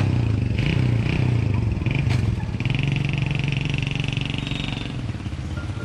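A motorbike engine running close by, a steady low rumble with a brief rise in pitch near the start.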